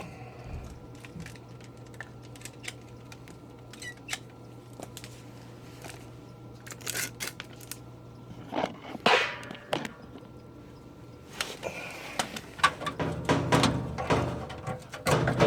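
Furnace running with a steady low hum, under scattered clicks and knocks from work on the unit; the knocking becomes busier and louder in the second half.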